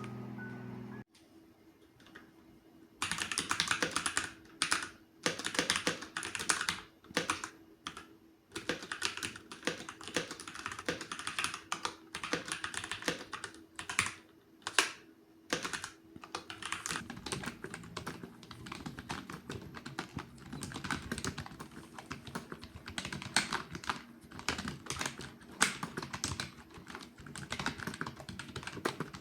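Fast typing on a computer keyboard: key clicks in quick runs separated by short pauses, beginning about three seconds in. A short run of rising musical notes ends about a second in.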